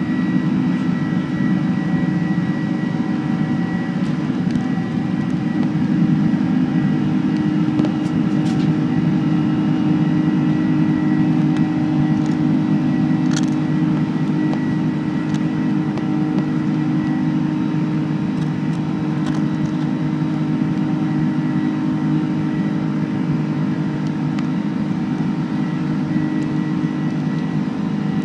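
Boeing 747-400's four jet engines at takeoff power, heard inside the cabin as the airliner rolls down the runway and climbs away: a steady, loud low drone with a few faint ticks and rattles.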